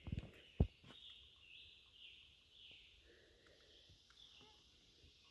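Faint woodland ambience: high-pitched chirping of wild creatures going on throughout, with two short knocks about half a second apart at the very start.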